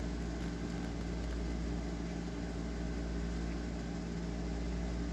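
Steady low mechanical hum with a deep rumble underneath, unchanging throughout.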